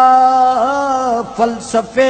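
A man's voice reciting Urdu devotional poetry in a melodic, chanted style, holding one long note for about a second before breaking into shorter phrases.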